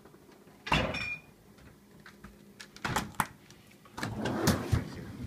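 Refrigerator doors being handled: a door swung shut with a thud about a second in, a couple of sharp clicks near the middle, then the freezer opened with rustling and a few soft knocks near the end.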